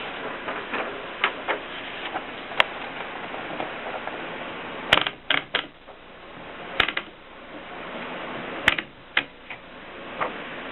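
Mignon Model 4 index typewriter printing: sharp, irregular clacks, some single and some in quick groups of two or three, with pauses between.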